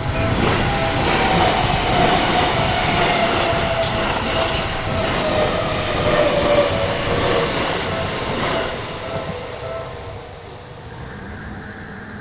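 Seibu Shinjuku Line electric train passing close over a level crossing: a dense rumble of wheels on rail with high whining and squealing tones that slowly fall in pitch, loudest for the first nine seconds or so and then fading as it moves away. The crossing's warning bell keeps ringing underneath.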